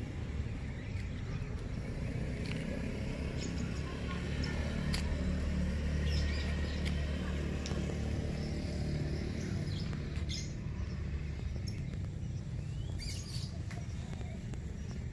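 A steady low engine sound, a little louder in the middle, with birds chirping now and then.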